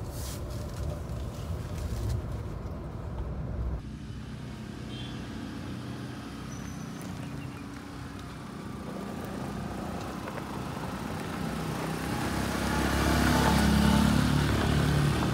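Mahindra Thar on a hill road, first as a steady rumble from inside the cab, then its engine and tyres growing louder as it comes around a bend and draws alongside near the end.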